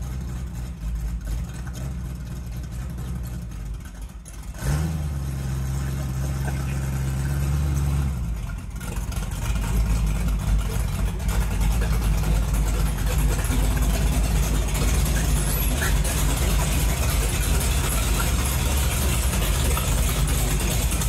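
Hot rod roadster's engine running at low speed as the car is driven slowly up and backed into the garage. The engine holds a steady higher speed for a few seconds about five seconds in, then grows louder and fuller as the car comes in close.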